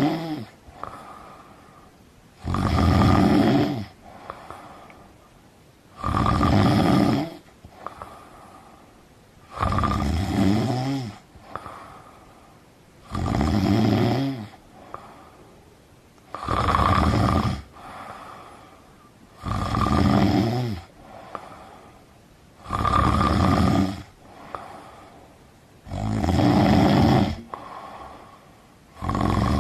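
A person snoring in a slow, regular rhythm: about nine loud snores, one every three and a half seconds, each lasting a little over a second, with quieter breathing between.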